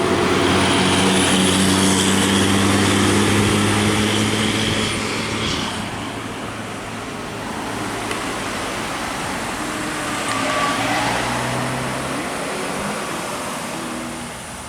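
Road traffic with a large vehicle's engine passing, loudest in the first four seconds. A second, smaller rise comes about ten seconds in.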